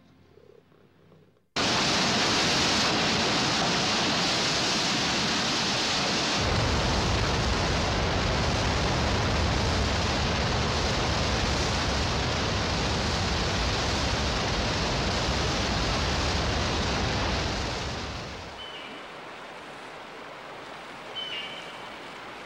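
Waterfall pouring: a loud, steady rush of falling water that starts abruptly about a second and a half in and deepens about six seconds in. Near the end it falls to the quieter rush of a fast mountain river with rapids, with a couple of short, high bird chirps.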